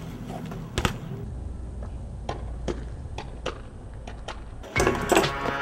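BMX bike ridden on concrete: tyres rolling with a low rumble, a hard knock about a second in as the bike hits the ledge, then a run of light clicks and taps from the bike. Music starts near the end.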